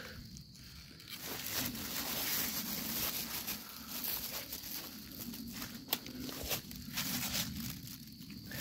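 Dry leaf litter rustling and crunching as someone walks over it and picks through it by hand, with scattered small crackles and one sharp click about six seconds in.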